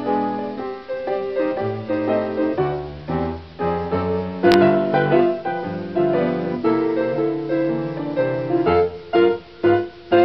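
Piano music: a flowing run of notes and chords that breaks into short, separated chords near the end, with a brief click partway through.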